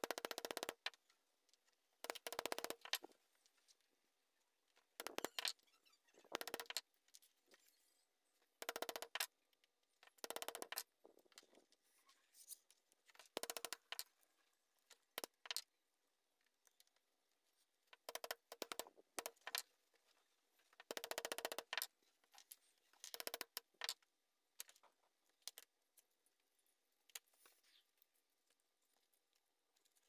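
Repeated short bursts of quick light taps and clicks, every one to three seconds: a small hammer tapping a metal axle rod and plastic bottle-cap wheels into place, with plastic parts clattering on a hard tabletop between the strikes.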